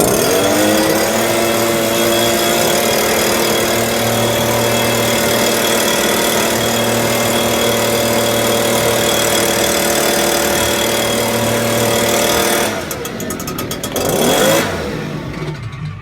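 Chainsaw revved up to full throttle and held steady for about twelve seconds, then let back to a rattling idle, with one more brief rev near the end.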